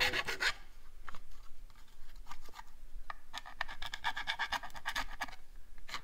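Small file scraping around the inside edge of a freshly drilled 3/4 inch hole in a plastic body panel, taking the burrs off. Quick strokes in the first half second and again for about two seconds from roughly three seconds in, with a few light clicks between.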